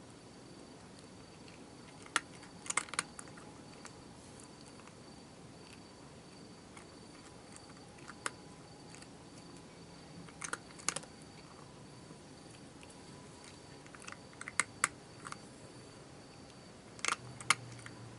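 Sharp clicks in short clusters every few seconds, over the faint steady high trill of a night insect such as a cricket.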